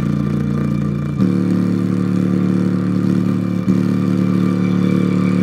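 Portable Bluetooth speaker with an exposed woofer playing a heavy, buzzy bass line: long held low notes, the note changing about a second in.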